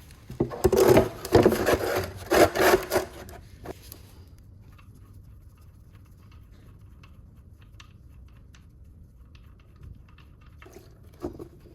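Ratchet wrench with a 17 mm socket loosening an oil drain plug, giving several rasping bursts over the first few seconds. Then only faint scattered clicks, with two short bursts near the end.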